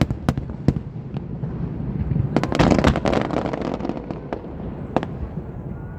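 Aerial fireworks going off: a few sharp bangs at the start, a dense cluster of crackling bursts about halfway through, then single bangs near the end.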